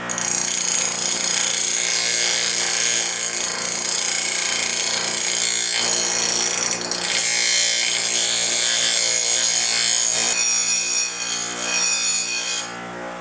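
A bench grinder's wheel grinds the edge of a steel knife blank being reprofiled. It makes a loud, hissing grind that starts abruptly, eases briefly about six to seven seconds in and again near eleven seconds as the blade is shifted, then stops shortly before the end.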